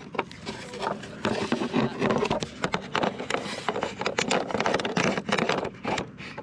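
Skateboard truck being worked into a Qwik Trucks quick-release baseplate by hand: a quick run of metal clicks, knocks and scrapes as the truck is pushed and seated in the mount.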